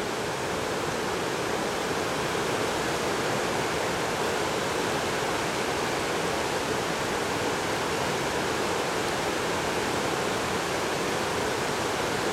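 A creek in flash flood, swollen far past its banks, rushing past fast in a steady, unbroken rush of water.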